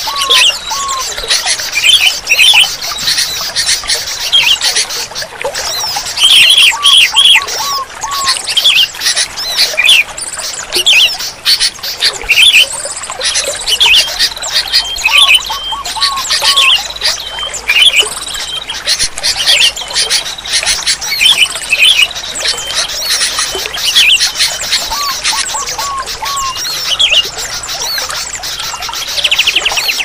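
Sooty-headed bulbuls singing: short phrases repeated every second or two, with groups of three or four lower notes every several seconds, over a busy chorus of other birds.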